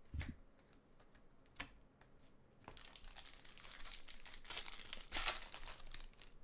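Foil wrapper of a baseball card pack being torn open and crinkled by hand: a dense crinkling that starts about two and a half seconds in and is loudest near the end. Before it come a soft thump just after the start and a single click.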